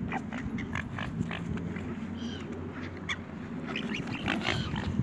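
Mute swans and cygnets pecking food off a tarmac path: a string of short, sharp bill clicks and snuffling, over a steady low rumble of wind on the microphone. A faint gull call about two seconds in.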